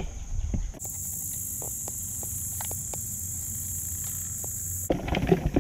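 Steady high-pitched buzzing of insects, with a few faint ticks. Near the end it gives way to louder, rougher noise.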